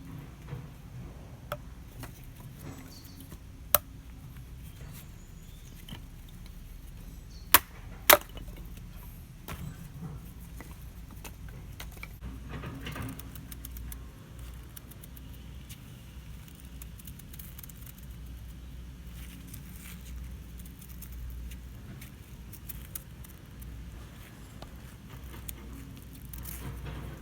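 Scattered small clicks and knocks of handling, with a sharp crack about four seconds in and two more close together near eight seconds, over a low steady rumble.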